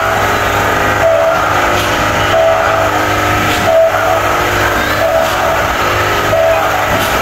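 Amusement-arcade din around a spinning kids' car ride: a steady hum and a wash of electronic machine tones, with a short beep-like tone repeating about every 1.3 seconds.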